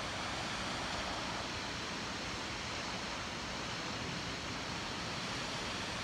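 Steady rush of flowing water, an even hiss with no breaks or changes.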